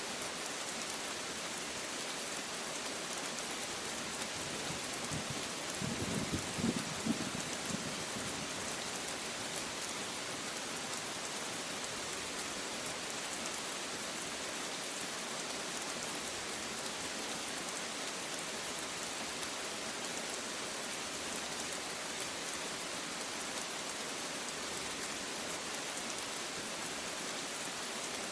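Steady rain falling, an even hiss of drops on a surface. A brief low rumble of thunder comes about six seconds in.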